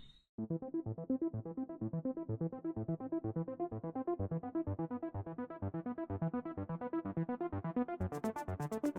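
Background electronic music: a fast, even pulse of synth-keyboard notes starting just after a brief silence, with a crisp high hi-hat pattern joining about eight seconds in.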